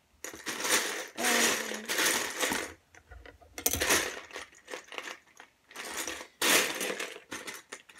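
A hand rummaging through loose LEGO bricks in a plastic bin, the pieces clattering and rattling against each other in several spells with short pauses between.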